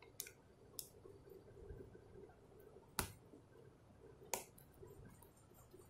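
Near silence with a few faint, sharp clicks from the plastic packet being handled, the clearest about three seconds in and another a little over a second later.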